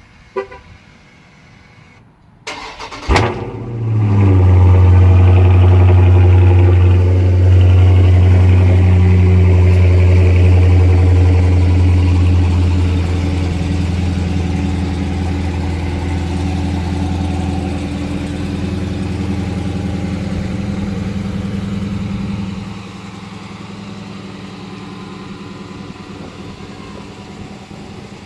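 Car engine cold-started: the starter cranks briefly, the engine catches about three seconds in and flares up, then runs loud at a high cold idle that eases, dropping to a lower idle a little past twenty seconds.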